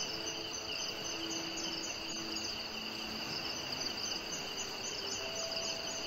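Crickets trilling steadily in a high-pitched, continuous chorus. A few faint, long-held low notes of soft background music come and go underneath.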